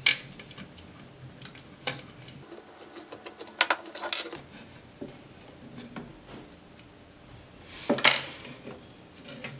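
Hand screwdriver turning out the screws of rusted visor clips: scattered small metallic clicks and scrapes, with a quick run of ticks about four seconds in and one louder knock about eight seconds in.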